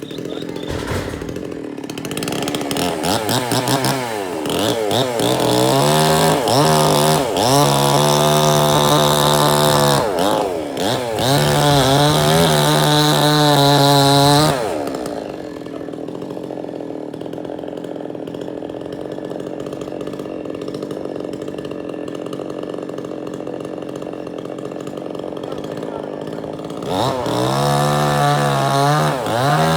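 Chainsaw engine revving up to full throttle and running hard with a couple of brief dips. About halfway through it drops back to a steady idle, then revs up to full speed again near the end.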